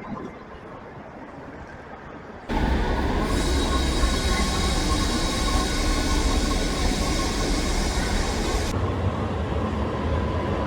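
A quieter stretch gives way abruptly, about two and a half seconds in, to a loud train running through the station. Its wheels squeal in steady high tones over a rumble, and a high hiss drops away near the end.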